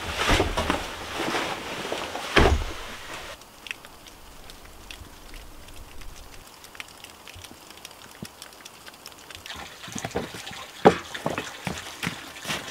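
A heavy backpack rustling as it is handled and swung onto a man's back, with a thud a couple of seconds in. Then a quiet stretch of faint scattered drips. Near the end come footsteps and sharp knocks on wooden steps, one knock the loudest sound.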